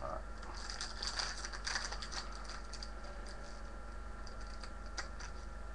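Trading card packs rustling and crinkling as they are handled: short irregular crackles and clicks, busiest in the first couple of seconds and sparser later.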